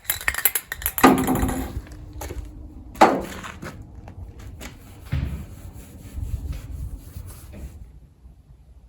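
A run of knocks and scraping from objects being handled, with two heavy thuds about one and three seconds in, dying away near the end.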